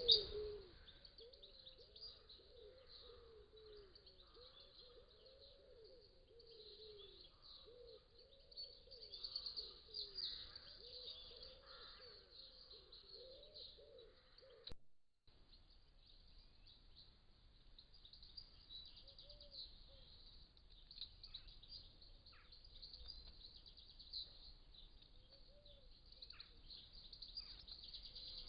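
Faint garden birdsong: continuous high-pitched chirping and twittering, with a run of repeated lower calls in the first half. The sound drops out for a moment about halfway.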